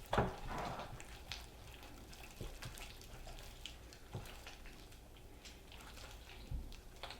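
Sticky peanut butter slime being mixed and handled: a knock right at the start, then scattered faint clicks and squishes.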